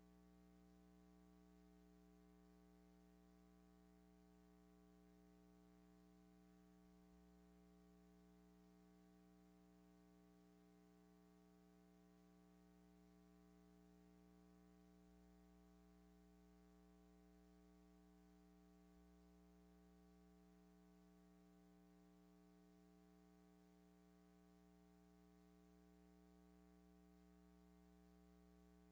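Near silence: a silent film track holding only a faint, steady hum.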